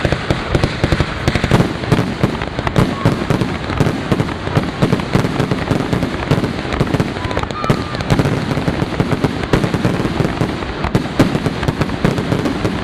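Fireworks going off in a dense, continuous barrage of rapid bangs and crackles, many per second.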